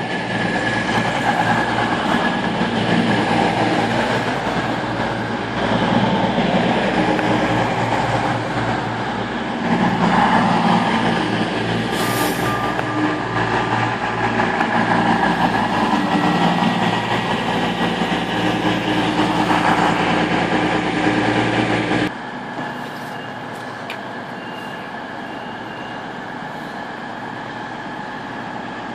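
Virgin Trains Class 221 Super Voyager diesel-electric unit running into the platform close by, its underfloor diesel engines and wheels loud and steady. About 22 seconds in the sound drops suddenly to the same train standing further off, engines idling more quietly.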